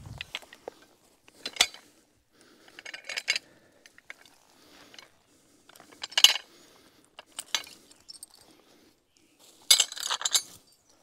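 Steel chain clinking and rattling as it is unhooked from an uprooted stump and pulled free: a handful of short rattles, the loudest one near the end as the chain is lifted away.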